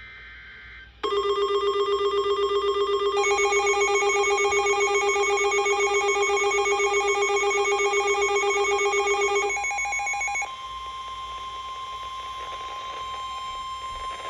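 Emergency alert tones on a NOAA weather radio, marking the start of a new warning. A loud, rapidly pulsing electronic alarm tone begins about a second in, and a higher tone joins it about three seconds in. Both drop away about ten seconds in, leaving a quieter steady single tone.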